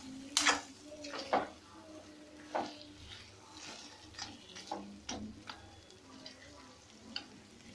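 A metal spatula scraping and knocking against a steel kadai while stirring thick chicken curry, in irregular strokes that are loudest early on and lighter later.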